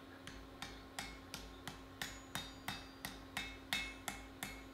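Hand hammer striking a red-hot axe blank on an anvil in light, even blows about three a second, each with a short metallic ring, straightening the freshly forge-welded blank.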